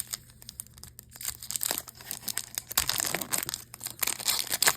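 Foil wrapper of a Yu-Gi-Oh! mega pack being crinkled and torn open by hand, the crackling growing denser from about a second and a half in.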